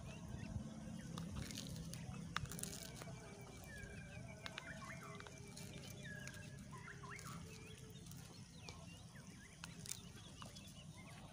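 Birds calling and chirping, with a short trill lasting a few seconds in the middle, and a few light clicks from hands handling something.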